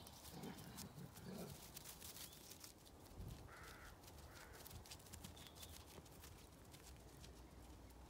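Near silence in an open field, with faint low sounds in the first second and a half and two short, harsh animal calls, the first a little after three seconds and the second just over a second later.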